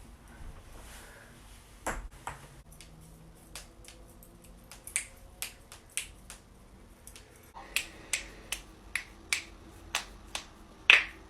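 Joints cracking: a series of sharp pops and clicks, scattered at first, then coming about two a second in the second half, with the loudest crack near the end.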